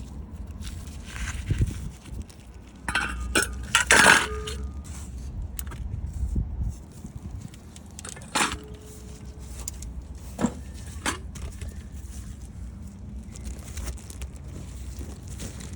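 Metal hand tools clinking and knocking against metal car parts: a handful of sharp clanks, a few with a short ringing, the loudest cluster about four seconds in and single knocks later on.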